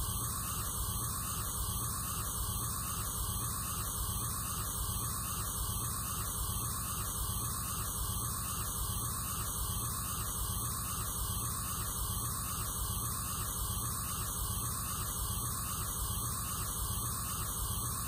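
Aerosol sunscreen can spraying in one long, unbroken, steady hiss.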